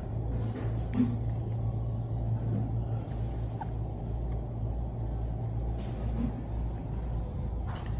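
Steady low hum or rumble, even in level throughout, with a few faint short knocks, the loudest about a second in.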